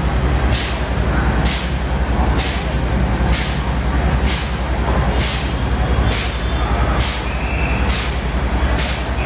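Fire truck's diesel engine running steadily with a deep rumble, powering the aerial ladder and water spray. A short sharp hiss repeats evenly about once a second over it.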